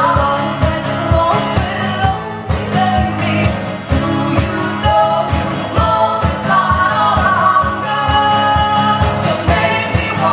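Live song performance: singing over a steady, evenly pulsing rhythmic accompaniment.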